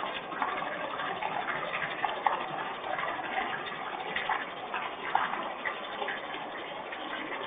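Rain falling steadily, with scattered sharp drip ticks.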